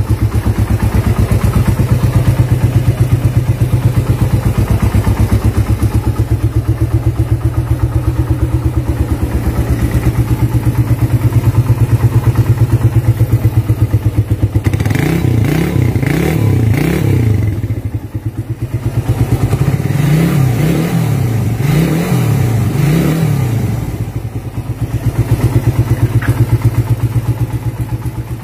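Suzuki Satria FU's 150 cc single-cylinder DOHC engine idling steadily on its stand, with quick repeated throttle blips that rev it up and let it drop, in a run about halfway through and again a few seconds later.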